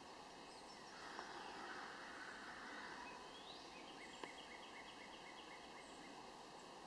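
Faint outdoor ambience with a bird calling at a distance: a single rising note, then a quick run of short repeated notes, about four a second, lasting under two seconds. A soft click comes partway through.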